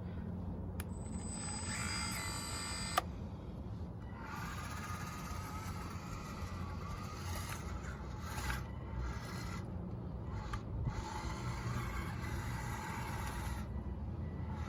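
Small electric motors of a radio-controlled Bobcat skid steer model whining as it drives, the whine rising and falling over a steady low hum, with a couple of sharp clicks early on.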